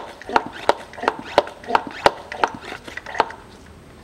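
Hand pump of a homemade two-litre pressure sprayer being worked in quick, even squeaky strokes, about three a second, stopping a little after three seconds in. The pumping pressurises the tank to push ATF through a hose into the automatic transmission.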